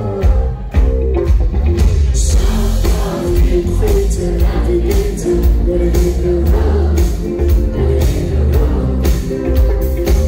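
A live pop-rock band playing a song, with a male lead vocal over electric guitars, bass, drums and keyboards, heard from out in the audience. A steady driving beat runs under it.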